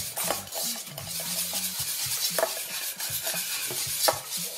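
Wire whisk beating thick, still slightly runny chocolate pastry cream in a pot: a steady wet swishing, with the whisk's wires clicking against the pot now and then.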